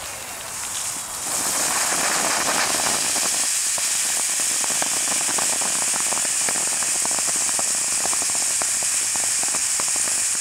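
Firework fountain spraying sparks: a loud steady hiss that starts about a second in, with many small crackling pops throughout.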